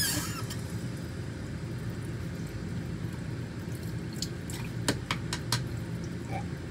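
Water running from a bathroom tap into the sink over a steady low hum, with a few sharp clicks about four to five and a half seconds in.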